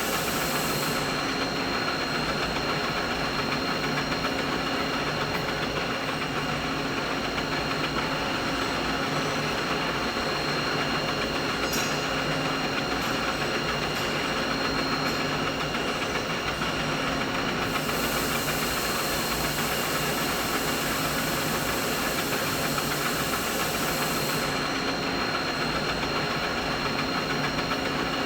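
Steady machine running noise: an even mid-pitched whir with several constant whining tones over it. The highest hiss drops away about a second in, comes back for several seconds after the middle, then drops away again.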